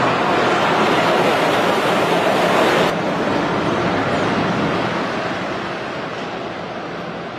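Suspended monorail car running along its overhead beam: a steady rushing noise with wind on the microphone. After an abrupt change about three seconds in, the noise slowly fades as the car draws away.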